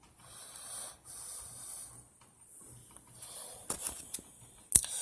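A paperback book being handled: three soft rustling swishes, then a few light clicks near the end.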